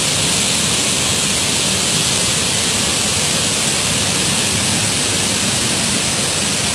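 Steady rushing roar of the Ban Gioc waterfall, a wide multi-tiered fall, a loud, even hiss with a low rumble underneath.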